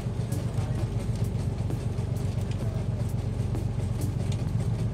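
A fishing boat's engine running steadily underway, a constant low drone, with faint light ticks above it.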